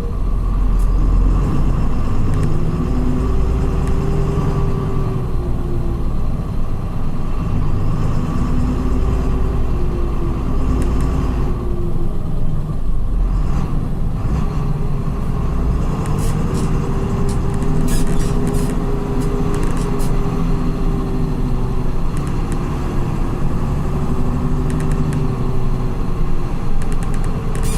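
Volkswagen 17.230 EOD coach chassis with a ZF gearbox under way: its diesel engine runs with a steady low rumble, its pitch rising and falling again and again as the coach accelerates and changes gear.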